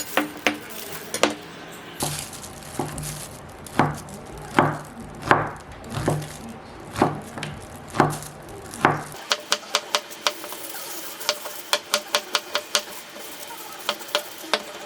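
Kitchen food-prep sounds: a utensil worked through a mixture in a bowl in repeated strokes, then, about nine seconds in, a quick run of light taps and clicks.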